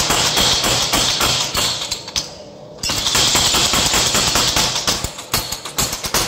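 Power hammer rapidly striking a red-hot steel axe blank held in tongs, a fast run of heavy blows. The blows pause for about half a second a little after two seconds in, then resume.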